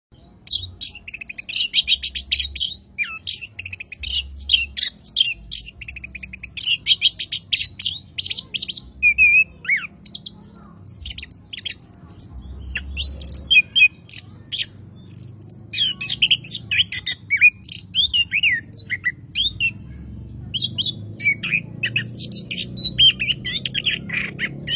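Chestnut-capped thrush (anis kembang) singing a long, varied song of rapid chattering phrases and quick whistled notes, with brief pauses between bursts.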